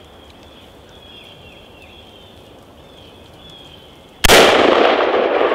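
A single shot from a Colt AR-15 firing .223 Remington, coming suddenly about four seconds in after a quiet stretch, its loud report trailing off slowly.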